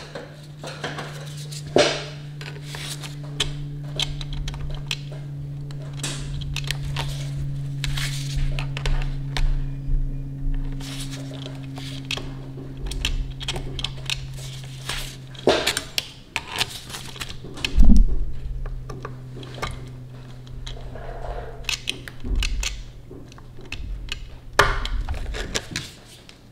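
Light metallic clicks and clinks of a cam chain and cam sprocket being worked by hand and with pliers onto the camshaft of a Honda Grom's single-cylinder engine, with one louder knock about two-thirds of the way through. A steady low hum runs underneath.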